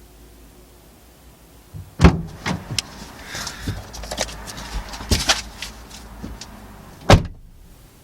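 Car door handled as someone gets into a car: a sharp knock about two seconds in, a few seconds of clicks and rustling, then the door shut with a thump near the end.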